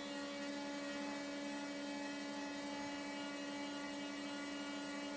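Battery forklift's electric hydraulic pump motor running with a steady, even hum while the lift lever is held and the forks sit stalled at full mast height. The changed note signals that the mast has reached the top of its travel.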